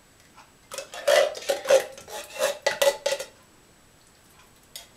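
A metal spoon clinking and scraping against a can and a ceramic bowl as thick coconut cream is scooped out: a quick run of ringing clinks starting about a second in and lasting about two seconds, then a couple of faint clicks near the end.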